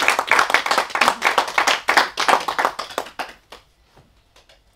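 A small audience applauding. The clapping thins out and stops about three and a half seconds in.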